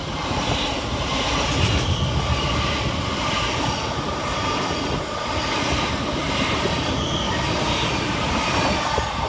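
Thameslink Class 700 electric multiple unit running along the platform: a steady noise of wheels on rails, with a faint steady tone above it.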